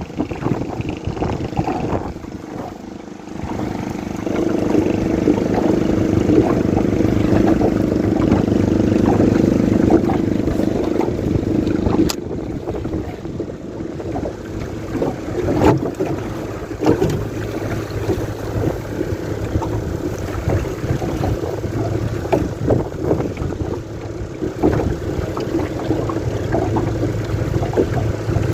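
Motor boat engine running steadily, louder for several seconds a few seconds in, over wind on the microphone, with a sharp click about halfway and a few light knocks.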